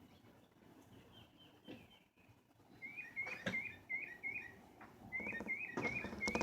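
A bird calling in two runs of short, repeated chirps at a steady pace, with a sharp click between them and rustling near the end.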